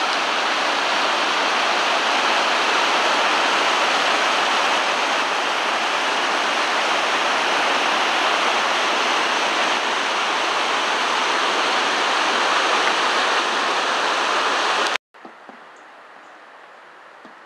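Mountain stream and waterfall rushing and splashing over boulders, a steady loud rush of water. It cuts off suddenly about fifteen seconds in, leaving only faint background noise.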